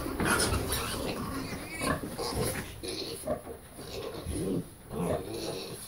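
Red Wattle pigs grunting, with piglets squealing in short, irregular calls as a second sow pushes in on the nursing litter and the piglets scatter.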